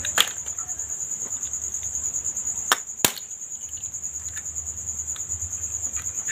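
Crickets chirping in a steady, fast, evenly pulsing high trill. Three sharp taps are heard near the start and about three seconds in, from an egg being cracked on a spoon over a plate of noodles.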